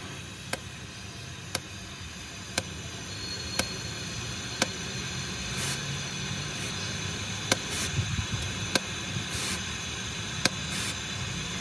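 Oxy-fuel gas cutting torch hissing steadily as its flame works on a steel bracket of a truck chassis. Sharp clicks come about once a second over the hiss.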